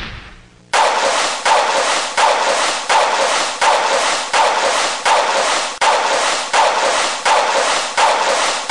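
A rhythmic series of sharp, noisy hits, about one every 0.7 seconds, each starting abruptly and dying away quickly, with little bass.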